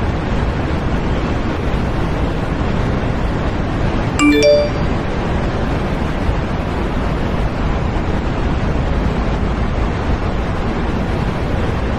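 Steady, loud rushing noise, with a phone notification chime of three quick rising notes about four seconds in.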